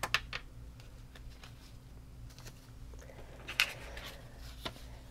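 Faint rustling and light taps of paper banknotes being picked up and handled, with a louder rustle about three and a half seconds in.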